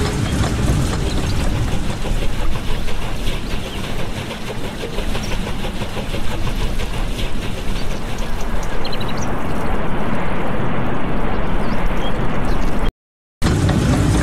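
Water rushing and splashing onto a turning wooden waterwheel: a steady, noisy rush with a low rumble underneath. It cuts out completely for about half a second near the end.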